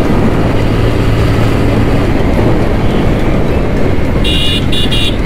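Motorcycle riding in traffic: steady engine and wind noise. Near the end a vehicle horn sounds in about three short beeps.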